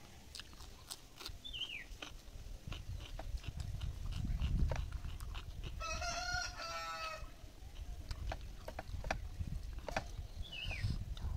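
A rooster crows once in the background for a little over a second, just past the middle, and a small bird gives two short falling chirps, one near the start and one near the end. Close-up eating sounds run underneath: chewing and fingers mixing rice, making soft low thumps and clicks.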